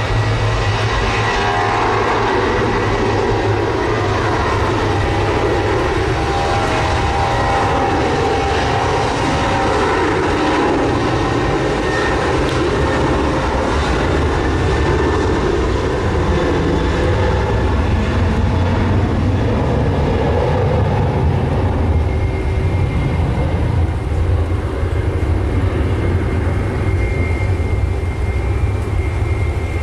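Boeing 737-800's twin CFM56-7B turbofan engines at takeoff power during the takeoff roll, a loud, steady jet noise. A thin high whine comes in about two-thirds of the way through.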